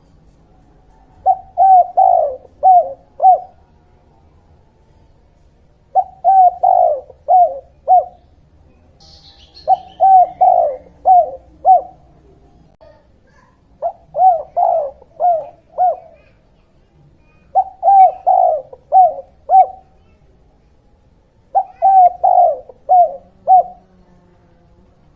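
Spotted dove (tekukur) cooing: six phrases about four seconds apart, each a quick run of about five short coos.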